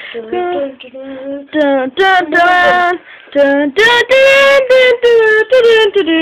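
A child singing loudly and unaccompanied in a high voice, a tune of short held notes with brief breaks between phrases.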